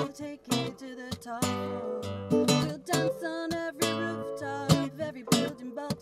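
Acoustic guitar strumming chords in a song's instrumental break, sharp strokes with the chords ringing between them.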